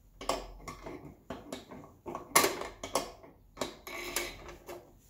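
Irregular metallic clicks and clinks of a wrench working the loose spring-loaded nut on a snowblower's chute-rotation crank, tightening it so the chute stops turning on its own. One sharper clack about two and a half seconds in.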